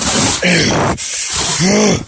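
Large cardboard box being ripped open by hand: loud tearing of cardboard, with short strained grunts half a second in and again near the end.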